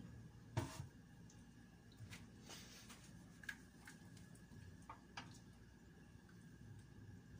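Faint, scattered clicks and scrapes of a metal utensil against a stainless steel pan while thick béchamel sauce is stirred, the loudest tap about half a second in.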